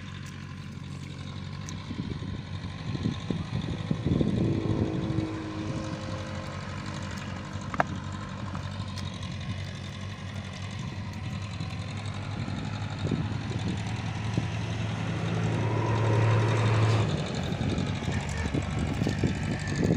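A motor running steadily in the background with a low hum, which swells and then drops away about three seconds before the end. Over it comes irregular sloshing of bare feet wading through shallow mud and water, and a single sharp click near the middle.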